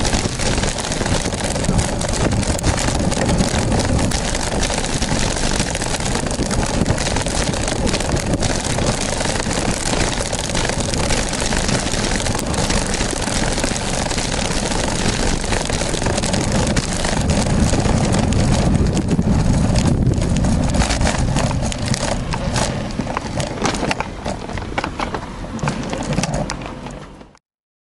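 Riding noise from a moving bicycle: wind buffeting the handlebar-mounted camera's microphone, with tyre rumble on the asphalt path and crackling rattles from bumps. The sound cuts out briefly near the end.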